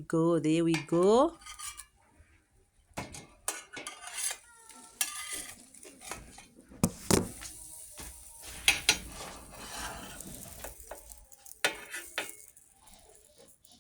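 A spatula scraping and knocking against a frying pan in scattered strokes as pancakes are turned and pressed, with batter sizzling faintly in the oiled pan.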